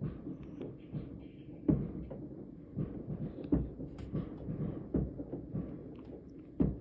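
Distant fireworks going off: an irregular run of muffled booms and pops, with the loudest bangs about two seconds in and near the end.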